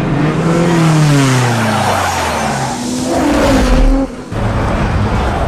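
Film sound effects of a car skidding: the engine note falls, then rises again as tyres slide in dirt. The sound cuts off sharply about four seconds in and gives way to a steady low engine drone.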